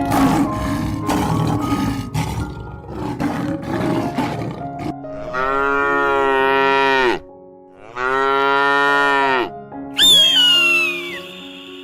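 Two long, drawn-out cow moos, each about two seconds, that rise and fall in pitch, over background music. They follow several seconds of rough, noisy growling, and near the end a high call slides downward.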